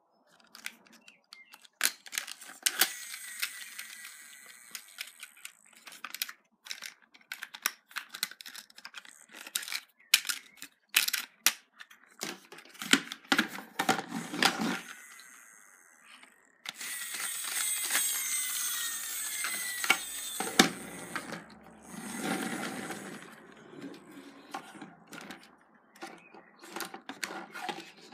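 Hard plastic toy tractor and trailer being handled: irregular clicks and knocks of plastic parts against each other and the table, with a few seconds of continuous rustling about two-thirds of the way through.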